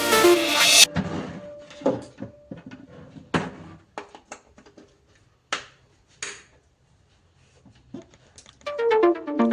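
Electronic background music cuts off about a second in, leaving a string of scattered sharp clicks and knocks of small hard objects being handled, with quiet gaps between them. The music comes back near the end.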